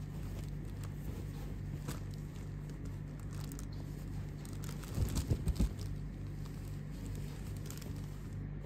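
A t-shirt being handled, the fabric rustling softly with faint scattered clicks, over a steady low hum. About five seconds in comes a short run of low thumps, like handling knocks on the microphone.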